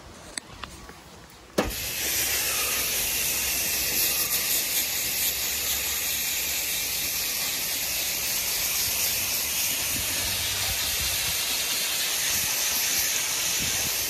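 Garden hose spray nozzle jetting water through the dirt-caked condenser coil fins of an outdoor AC unit, rinsing from the inside out. A steady hiss starts suddenly with a click about one and a half seconds in and runs on evenly.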